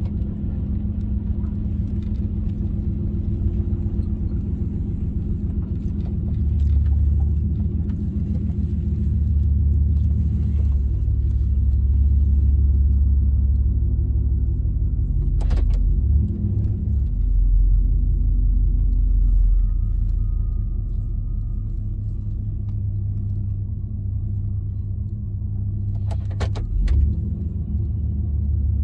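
Chevrolet small-block 350 V8 running through Flowmaster Super 10 mufflers with no catalytic converters, a steady deep exhaust rumble heard from inside the truck's cab that swells and eases a few times. A sharp click sounds about halfway and a few more near the end.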